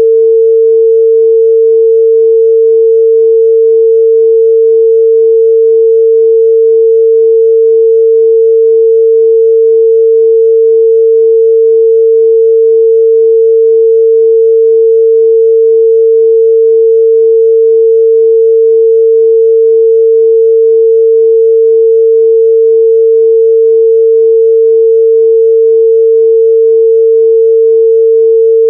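A 451 Hz sine-wave test tone, one pure mid-range pitch held steady and loud with no change.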